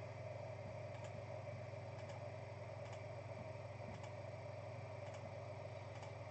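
Quiet room tone: a steady low electrical hum with faint ticks about once a second.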